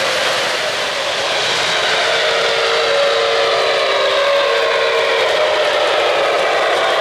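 O-gauge model freight trains rolling steadily over three-rail track, with a model steam locomotive's whistle sounding a held chord for about three seconds in the middle.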